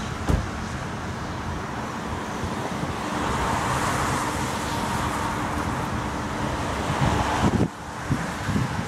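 Road traffic passing, a steady wash of car noise that swells a few seconds in, with a sharp thump at the start and a few knocks near the end.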